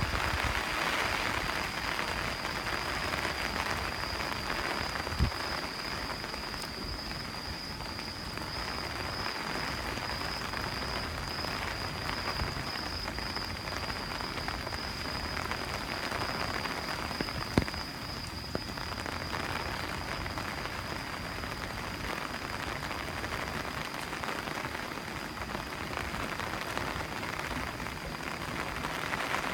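Typhoon rain falling steadily, an even hiss with a thin high whine under it. Two short knocks cut through it, about five seconds in and again near eighteen seconds.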